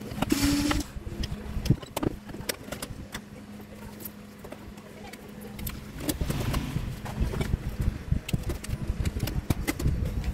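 Scattered clicks, taps and light rattles as a circuit board is handled and lifted out of a TV's metal chassis.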